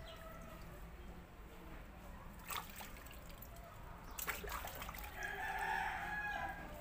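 A rooster crows once, about five seconds in, over the light splashing of hands stirring shampoo into a plastic basin of water, with a few sharp clicks from the handling.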